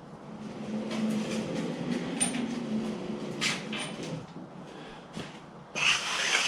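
Wheels of a loaded moving frame rolling across the workshop floor under a heavy lathe as one end is pushed over, with a low humming tone through the first few seconds that fades away. A short scraping rush comes near the end.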